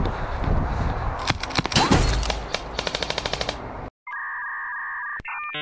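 Airsoft gun firing rapid bursts of about ten shots a second, with wind rumbling on the microphone. About four seconds in, the sound cuts off abruptly and a steady electronic beep tone starts.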